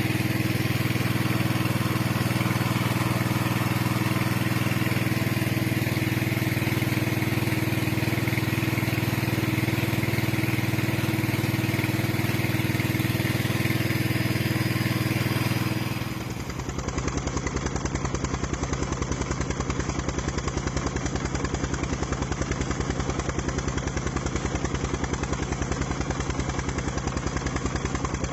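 Engine of a water suction pump running steadily while it drains a pond. About 16 seconds in the sound changes abruptly to a rapid, even chugging beat with less hiss.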